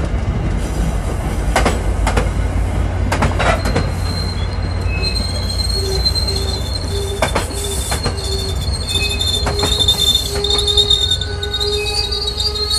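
MBTA commuter rail train slowing into a station over a steady low rumble, its wheels clicking over rail joints. From about four seconds in, a high steady squeal of several tones joins as the train brakes toward a stop.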